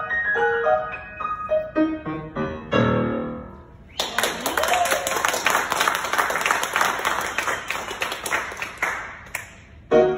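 Grand piano playing a falling run of notes that ends on a low chord left to ring. About four seconds in, audience applause starts abruptly and lasts about five seconds, and a short piano sound comes near the end.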